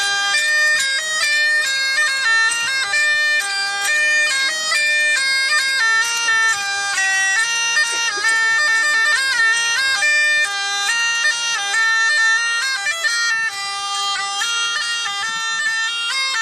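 Bagpipe tune: steady drones sound beneath a chanter melody that moves from note to note with quick grace-note ornaments.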